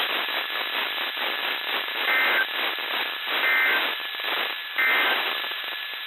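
NOAA Weather Radio signal on a software-defined radio: steady radio hiss, broken by three short warbling two-tone data bursts a little over a second apart. The bursts are the EAS/SAME end-of-message code that closes the required weekly test.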